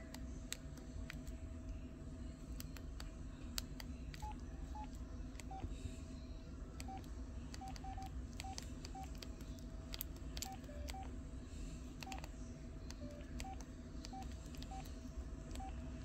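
Short, faint keypad beeps from an LG Cosmos 3 flip-style phone, one per button press as its menus are scrolled, irregularly spaced and sometimes two or three in quick succession, with light clicks of the keys.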